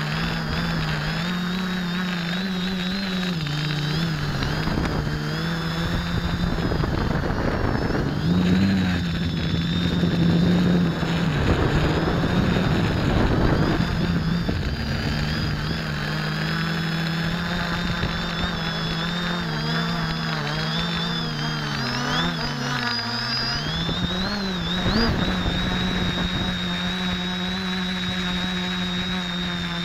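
X550AIOP quadcopter's electric motors and propellers whirring in flight, the pitch wavering up and down as the throttle changes. A louder rush of wind noise comes in from about eight to fourteen seconds in.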